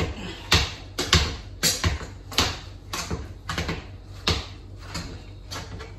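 Hand potato masher mashing cooked potatoes in a stainless steel pot: a steady run of knocks, about two a second, as the masher hits the bottom of the pot.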